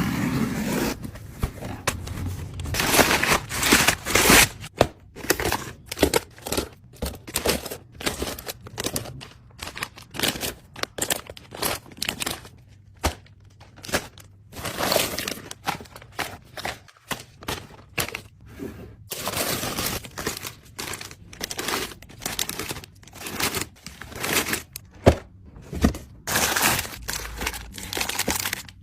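Packaging and containers being handled while a refrigerator is stocked: crinkling rustles of wrappers or bags, with many quick clicks, taps and knocks as items are set down and lids handled.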